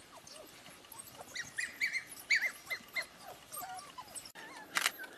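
African wild dogs, adults and pups at a den, making quick high-pitched twittering and squeaking calls, many short calls in a run through the first three and a half seconds. A few sharp clicks come near the end.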